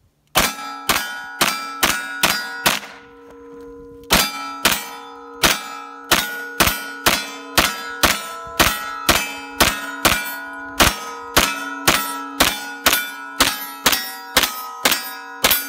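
Semi-automatic carbine fire at steel targets, each shot followed by the plates ringing with a clanging tone. About six shots half a second apart, a short break about three seconds in, then a long fast string of about two to three shots a second.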